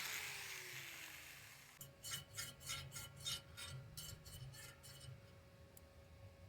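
A power tool spinning down with a falling pitch, then faint rasping strokes, about three or four a second for roughly three seconds: hand filing or scraping on the welded iron tubing.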